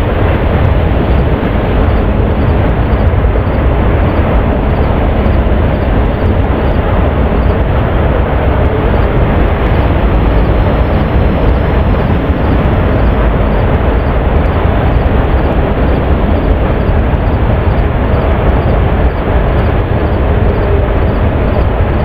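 Steady, loud, low rumbling noise with no distinct events.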